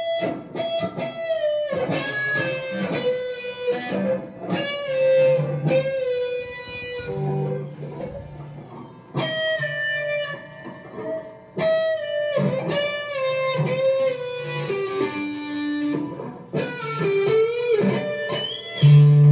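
Electric guitar played solo: a melodic lead line of sustained notes, some bent and wavering in pitch, in phrases broken by brief pauses.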